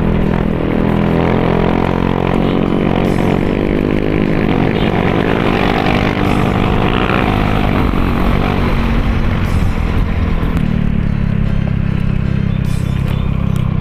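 Honda scooter engine running under way, its pitch climbing over the first several seconds as it speeds up, then holding steadier near the end.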